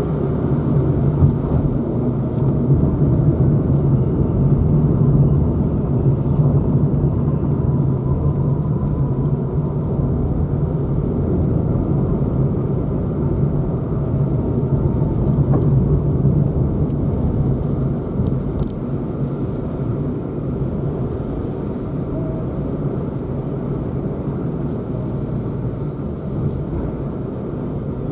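Car driving along a road, heard from on board: a steady rumble of engine and tyres.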